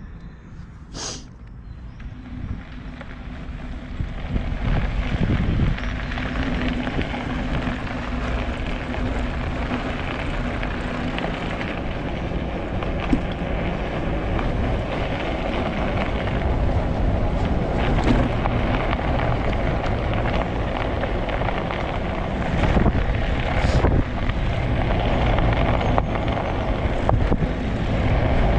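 Wind buffeting the microphone and tyre rumble from a fat-tyre recumbent trike being ridden over snow and ice, getting louder about four seconds in. A low steady hum runs under it for the first ten seconds or so.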